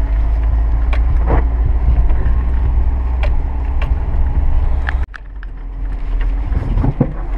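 Car cabin on a rough dirt track: the engine runs with a steady low drone, and short knocks and rattles come from the body and suspension over the bumps. The sound drops off abruptly about five seconds in, then builds back up.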